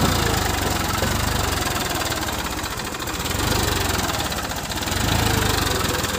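Massey Ferguson 241 DI tractor's three-cylinder diesel engine working hard as the tractor, stuck in deep mud, churns its rear wheels to pull out. The engine note swells twice in the second half.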